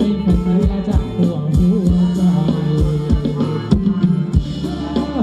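Live band playing Thai ramwong dance music: a steady, driving drum beat of about two to three strokes a second under a held bass line and a winding melody.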